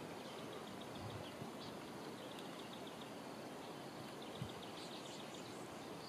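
Faint outdoor background with short runs of rapid, high-pitched ticking calls from a small animal, repeated every second or two.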